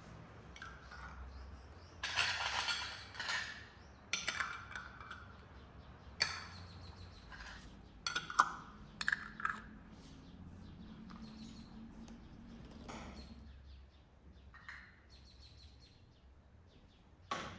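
Glass jars and bottles being handled and capped: a few seconds of scraping as a plastic lid is pressed and turned on a large glass jar, then a series of light glass clinks and knocks.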